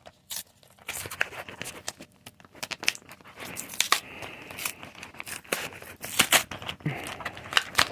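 Crinkly Pokémon trading-card packaging being torn open and crumpled, with irregular sharp crackles and rips.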